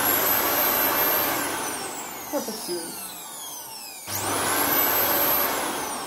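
A Fakir Daky 1600-watt stick vacuum cleaner's motor runs at full speed with a high whine. It is switched off about a second in and winds down with a falling whine. About four seconds in it is switched on again, spins up with a rising whine, runs briefly, and winds down again near the end.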